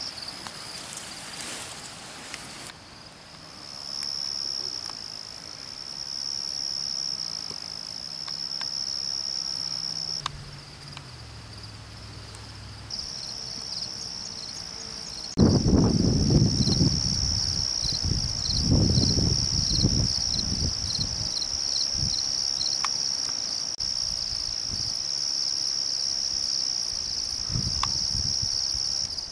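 A steady, high-pitched insect chorus trilling without a break, dropping out about ten seconds in and returning a few seconds later. In the middle come several seconds of loud, gusty low noise.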